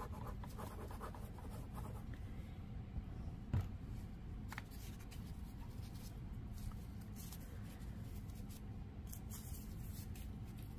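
Torn paper scraps being laid onto a glued paper strip and pressed down by hand: faint rustling and rubbing of paper on the desk, with one knock about three and a half seconds in.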